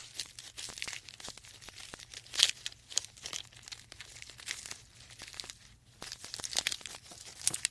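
Giraffe sound: irregular crunching, crackling clicks and tearing noises, with a louder crunch about two and a half seconds in.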